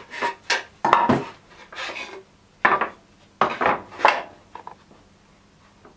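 Stack of wooden boards being set down and shuffled on the metal table of a miter saw, knocking and scraping against the table and fence in a series of short clatters that stop about five seconds in.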